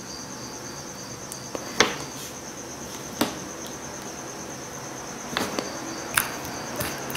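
A cricket chirping in a steady, rapid pulsing trill, with about five sharp clicks and taps scattered through it.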